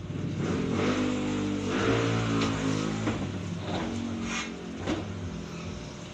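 A motor vehicle engine revving nearby, its pitch rising and shifting for several seconds before easing off, over a steady low hum, with a few light knocks.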